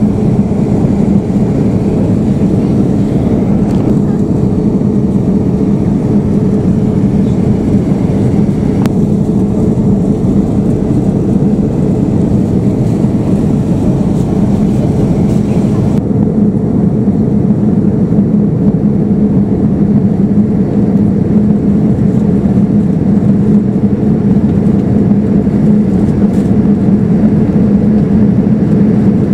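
Steady cabin noise of a Boeing 787-9 airliner in cruise: a constant, loud rush of airflow and engine drone with a steady low hum. The higher hiss drops away about halfway through.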